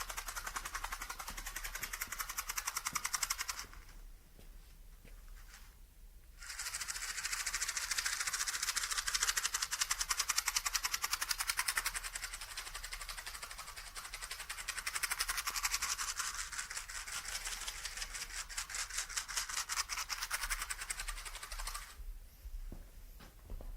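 Matches rattling inside a matchbox that is shaken quickly, making a dense run of fast clicks. It pauses for a few seconds about four seconds in, then continues until it stops near the end.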